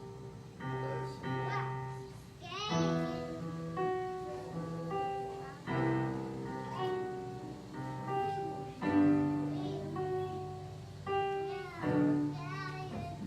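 Keyboard playing slow held chords of a worship song, with a voice singing a few notes at times over it.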